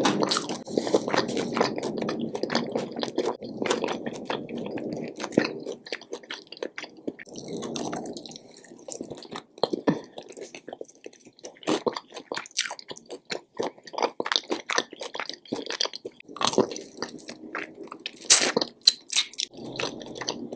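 A person biting and chewing a fried chicken wing: wet chewing with many short sharp mouth clicks and smacks.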